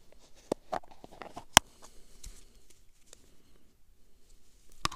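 Hands handling a plastic worm tub: a few sharp clicks and knocks of plastic, the sharpest about a second and a half in, with soft rustling between as fingers dig through the soil for bait worms.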